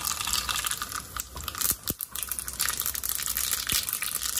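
Mustard seeds sizzling in hot oil in a small tempering pan, with a steady hiss and dense crackling as they begin to splutter, a few louder pops about halfway through. The oil is hot enough for tempering.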